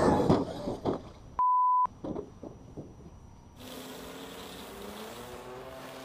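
A single pure-tone censor bleep, under half a second long, about a second and a half in, following a short loud jumble of sound. From about three and a half seconds in the sound changes to a steady hiss with faint tones slowly rising in pitch.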